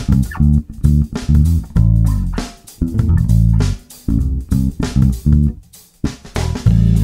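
Background outro music: a funky bass and guitar groove with a drum beat.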